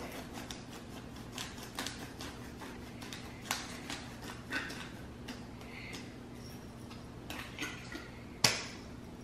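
Hand-twisted spice grinder grinding seasoning, a run of irregular small crunching clicks, with a sharper knock near the end.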